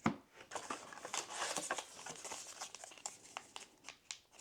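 Booster-pack wrapper being crinkled and torn open by hand: a continuous run of crackles and small sharp rips.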